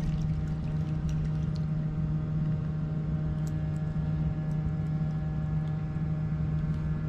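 A steady, low engine hum with even overtones, unchanging throughout, with a few faint ticks in the first couple of seconds.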